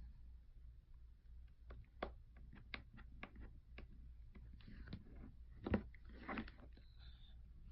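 Faint scattered clicks and ticks of a small precision screwdriver and tiny screws on the metal connector plate inside an iPhone 7, as the plate's screws go back in. A sharper tap comes a little before six seconds in, followed by a brief scraping sound.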